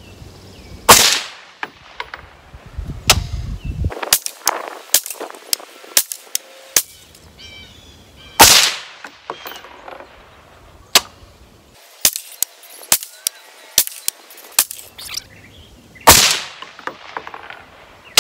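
Shots from a Fort Mills Firearms FMF15 piston 5.56 rifle fired from a bench rest. There are three loud reports with a long echoing tail, about a second, eight seconds and sixteen seconds in, and many shorter, sharper cracks between them.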